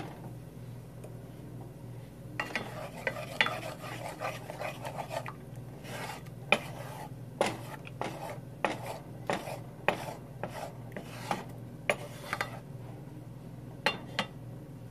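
Wooden spatula stirring and scraping scrambled eggs in a frying pan, with sharp knocks against the pan about once or twice a second from about six seconds in.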